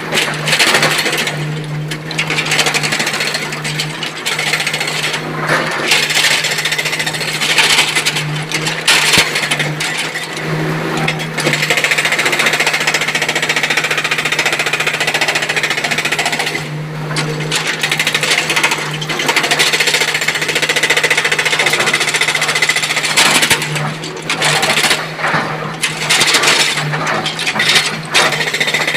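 Excavator at work: a steady engine drone under continuous rough clattering and scraping, with irregular sharp knocks.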